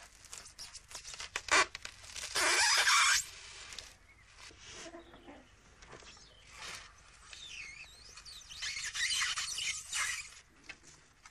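Sheets of expanded polystyrene squeaking and scraping as they are pierced and pulled through, among scattered clicks and knocks. The loudest scrape comes about two and a half seconds in, and a run of squeals and scraping comes near the end.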